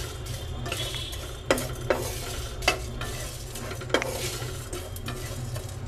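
Spatula stirring and scraping whole spices as they dry-roast in a nonstick frying pan, with a few sharp clicks of the spatula against the pan, over a steady low hum.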